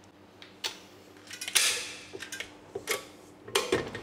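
Stand mixer attachment being taken off and another fitted: a series of sharp metallic clicks and clinks, with a louder rattle about a second and a half in and a knock near the end.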